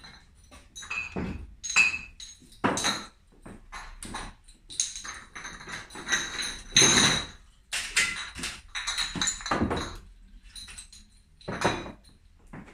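Glass beer bottles knocking and clinking as they are handled while home-brewed beer is bottled: a run of irregular knocks with brief ringing glass clinks.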